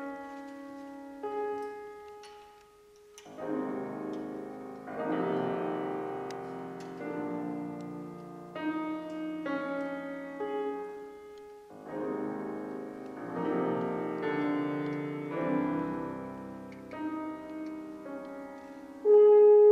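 Steinway grand piano playing a solo passage of chords and runs that swell and fall back. Near the end a euphonium comes in loudly on a long held note.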